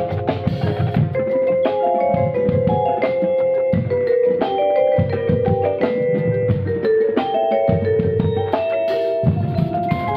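Vibraphone played with four mallets, metal bars ringing in sustained notes that step through a melodic line, with drums and other percussion playing alongside.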